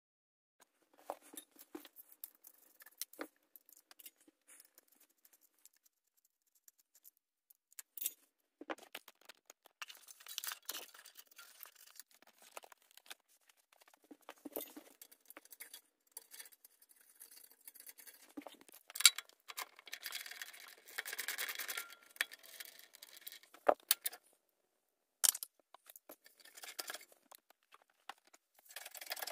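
Hand tools and metal exhaust parts being worked on a motorcycle's stock exhaust: scattered clicks, taps and scrapes as the exhaust clamp is loosened and the silencer is handled, with a denser run of scraping noise about twenty seconds in.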